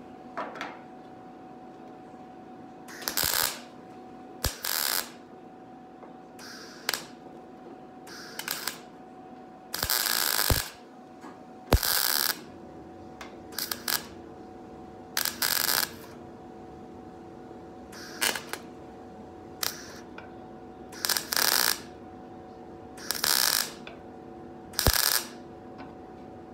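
MIG welder laying a series of short tack welds on a sheet-steel body seam: about fifteen brief bursts, a fraction of a second to about a second each, at uneven intervals. A steady hum runs under them.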